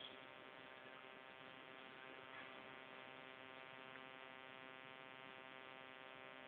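Faint, steady hum with many even overtones, unchanging in pitch and level.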